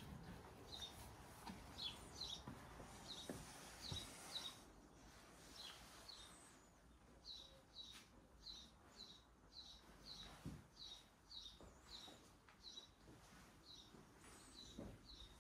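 Faint small-bird chirping: short high notes, each sliding down in pitch, repeated about two a second, over a faint outdoor hiss, with a soft low knock twice near the end.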